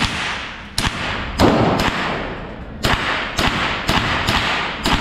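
A string of about nine gunshots fired one after another, roughly one every half second at an uneven pace, each followed by a brief echo.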